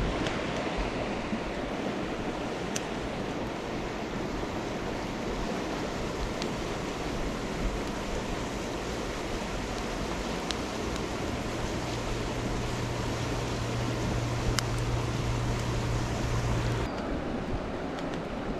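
Steady rushing of a mountain river flowing over a stony bed, with a few faint clicks scattered through it.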